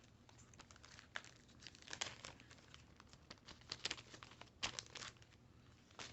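Faint crinkling and rustling of card packaging being handled, in irregular short crackles with a few louder ones near the middle.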